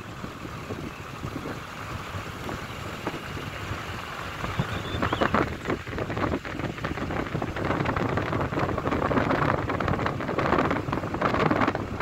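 Wind buffeting the microphone, a rough rushing noise that grows louder and gustier about halfway through.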